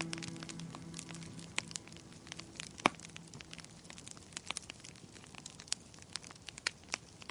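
Wood fire crackling in a fireplace: irregular small pops and snaps, with one sharper pop about three seconds in. The last notes of soft music fade out over the first couple of seconds.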